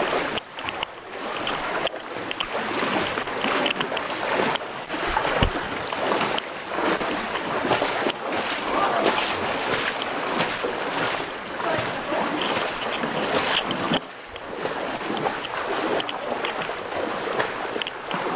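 Water splashing as several people wade through a shallow, fast-flowing canyon river, over the steady rush of the stream.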